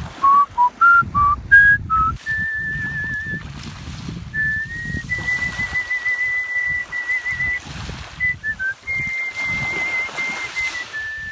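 Artistic mouth whistling of a melody: short notes stepping upward in pitch over the first two seconds, then long high held notes with a wavering vibrato.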